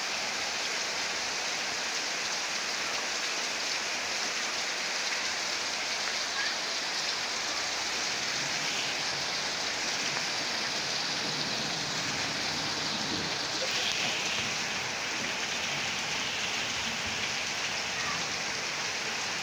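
Heavy rain pouring down steadily on the bare earth of a yard, a dense even hiss of rain.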